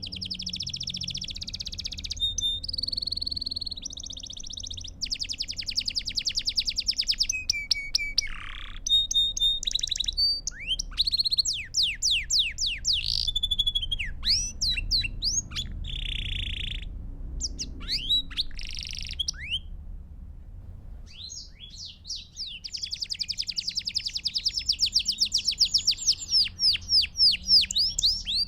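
Belgian canary singing a long song of fast trills, rapid repeated notes and quick whistled sweeps, breaking off for about two seconds past the middle before a long fast trill, over a faint low hum.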